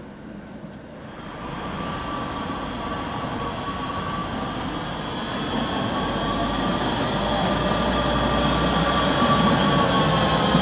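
Electric articulated tram drawing near and passing, growing steadily louder, with a high whine of several steady tones that bend slightly in pitch over the rumble of wheels on rails.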